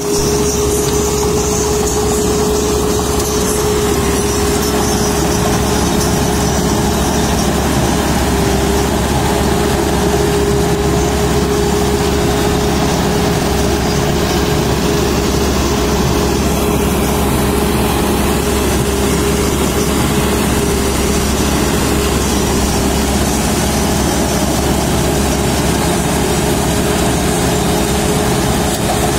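Dasmesh 726 tracked combine harvester working through ripe grain, its engine and threshing machinery running under load with a loud, steady drone. A constant humming tone rides on top throughout.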